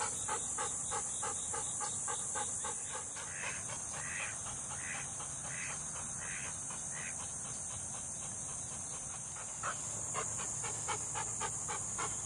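A dog panting quickly, about four breaths a second, over a steady high-pitched drone of insects.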